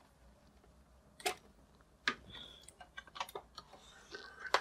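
Handling noise: a few light clicks and knocks at irregular intervals, the sharpest near the end.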